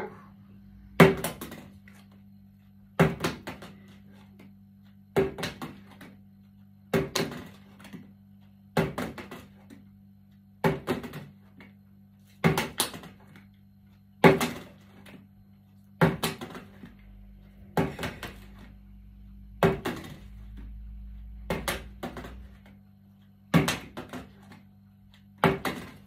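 Plastic bottle flipped onto a wooden tabletop over and over, each throw landing with a quick clatter of knocks as it bounces and topples over, about once every two seconds.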